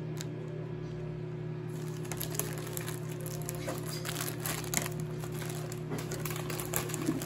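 Rapid crinkling and crackling with small sharp clicks, starting about two seconds in, over a steady low hum.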